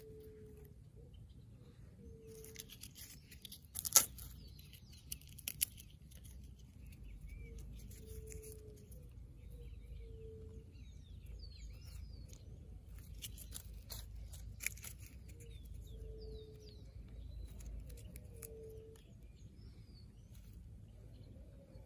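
Dry twigs and wood slivers clicking and knocking as they are laid into a small fire stack, with one sharp crack about four seconds in. Faint bird chirps and a short low call repeating every couple of seconds sound in the background.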